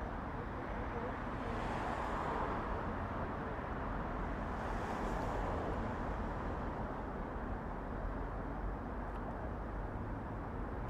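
Steady road traffic: an even rumble of cars with two gentle swells as vehicles pass, about two and five seconds in.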